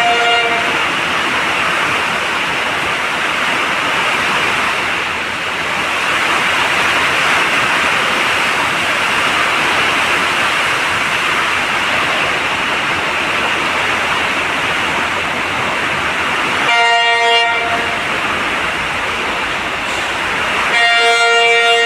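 Heavy rain falling in a steady dense hiss, with a train horn sounding three times: briefly at the start, again for about a second and a half past the three-quarter mark, and once more near the end.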